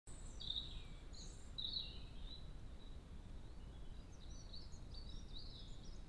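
A songbird singing: short high chirped phrases in the first couple of seconds, then a longer warbling run from about halfway in, over a steady low background rumble.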